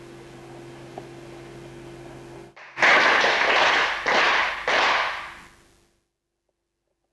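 Several hand claps made in unison by a group, part of the Shinto-style bow toward the dojo shrine. Each clap is sharp and trails off in the hall's echo. A steady hum runs before the claps begin.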